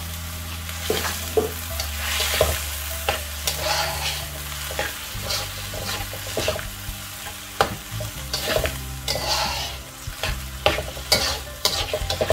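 Minced meat and soy sauce sizzling in a wok while a metal spatula stirs it, with irregular scrapes and clacks of the spatula against the pan.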